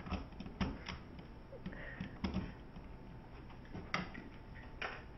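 A handful of light, separate clicks and knocks, spread over about five seconds, from an electric steamer being handled just after it is plugged in.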